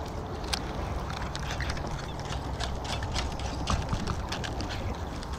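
Baitcasting reel being cranked and the rod handled, giving a run of irregular light clicks and knocks over a low steady rumble.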